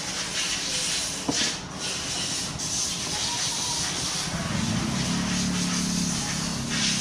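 Steady hiss of background noise, with a single small click about a second in and a low hum that comes in past the middle and fades before the end.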